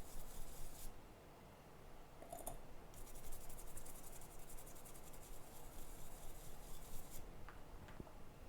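Fast, scratchy rubbing strokes from cleaning the RAM pads on an iPhone 6 logic board. The scrubbing stops about a second in and starts again from about three seconds to seven.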